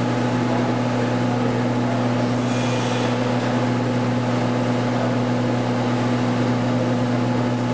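Steady mechanical hum: a constant low drone with an even hiss over it, unchanging throughout.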